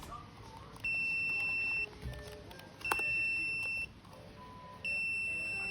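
Electronic buzzer giving a steady, high-pitched beep about a second long, three times, one every two seconds, with a click as the second beep starts.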